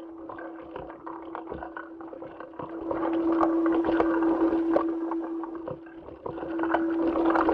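Soundtrack of ISS spacewalk footage: a steady hum under rustling, knocking and clicks from the suited astronaut moving, sloshing like water and growing louder about three seconds in.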